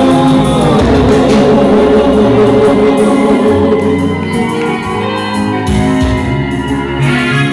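Loud live gospel music: an African church choir singing with amplified instrumental backing. The sung voices are clearest in the first couple of seconds, with the instruments carrying most of the rest.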